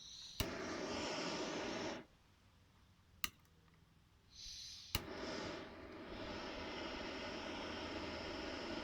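Old SAC vacuum pump starting with a click and running with a steady hum, stopping about two seconds in, then starting again a couple of seconds later and running steadily.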